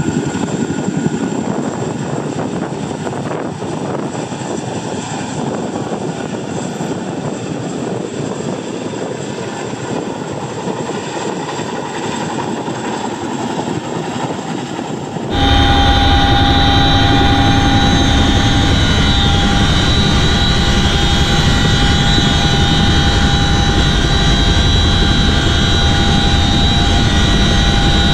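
CH-47 Chinook tandem-rotor helicopter hovering low over water, first heard from outside as a steady rushing noise. About fifteen seconds in, the sound cuts suddenly to inside the helicopter at its open rear ramp: much louder and deeper, with several steady high-pitched whines over the rumble.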